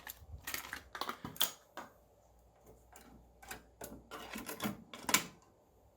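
Irregular mechanical clicks and clacks from handling the cassette deck and a test cassette, with a short lull partway through.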